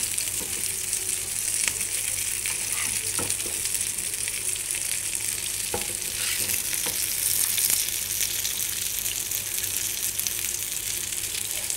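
Potato and chicken cutlets sizzling steadily as they shallow-fry in a little oil in a nonstick frying pan. A metal slotted spatula scrapes and taps against the pan a few times as the cutlets are moved about.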